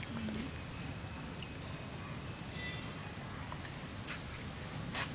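Insects chirring steadily in a high, slightly pulsing drone, with a second insect giving a short run of about five chirps about a second in.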